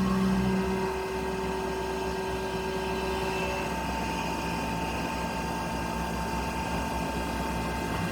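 UGINT UT650 vertical machining center running, a steady mechanical hum with several held tones. A lower tone drops out about a second in and another a few seconds later.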